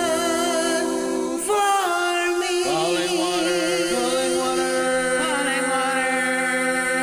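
Multitrack a cappella singing: one man's voice layered into several harmony parts, holding sustained chords with vibrato, the chord changing about a second and a half in and again near three seconds.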